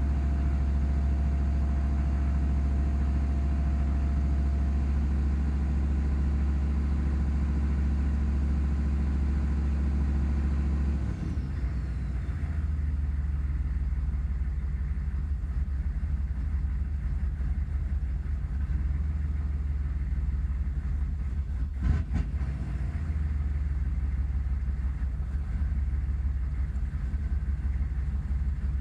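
1996 Chevrolet 6.5-litre turbo-diesel V8 running steadily with the throttle held just above idle. About eleven seconds in it drops back to idle with a faint falling whine and runs unevenly, a rough idle that goes away when the throttle is held up. A single sharp knock comes about twenty-two seconds in.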